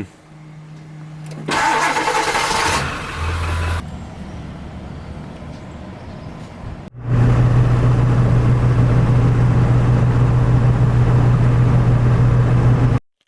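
A vehicle engine starts up and runs. After a cut about seven seconds in, a loud, steady engine and road drone follows while driving.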